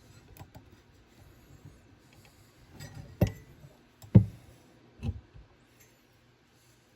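Small clicks and handling noises of a stove fan's parts being worked by hand, then three sharp knocks about a second apart, the middle one the loudest, as the replacement motor and its fittings are knocked and fitted into place.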